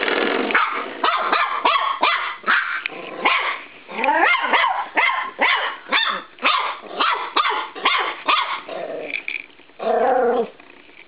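Norfolk Terrier puppy barking in a rapid series of short, high yaps, about two a second, mixed with growling, as it attacks a spring door stop. A lower, longer growl comes near the end.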